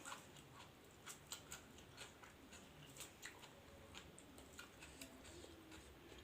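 A person chewing food close to the microphone: faint, irregular crisp clicks and crunches about two or three times a second.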